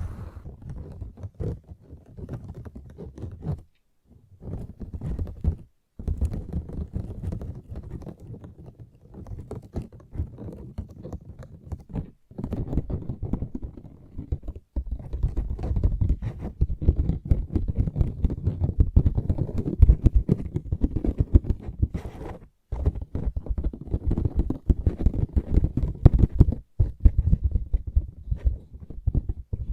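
Fingertip pads tapping and scratching in quick, dense strokes, broken by a few short, sudden gaps of silence.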